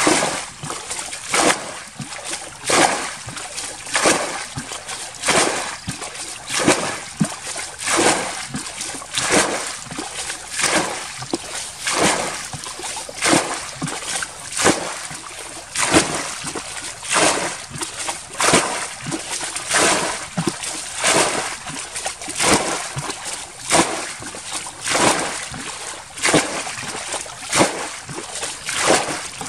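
Water being bailed out of a muddy ditch with a bucket: a splash each time the bucket is scooped and its water thrown out, repeating in a steady rhythm about once every second and a half.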